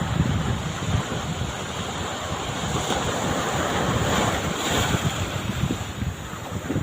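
Sea waves washing in, with a wash that swells around the middle, while wind buffets the microphone in low gusty rumbles.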